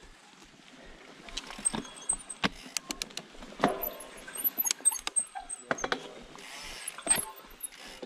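Mountain bike rolling slowly over a dirt forest path: irregular clicks, knocks and rattles from the bike, with a faint hiss of tyres on the ground.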